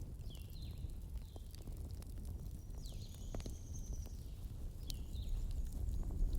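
Bonfire crackling with sparse faint pops over a steady low rumble, with a few short high bird chirps and one longer high note in the middle.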